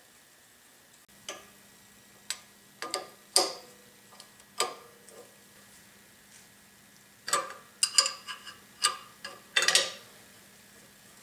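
Metal tools and parts clinking and knocking, a dozen or so sharp strikes with a short ring in two bunches, as the planer's brake hub is taken off its shaft. A faint steady hum lies underneath.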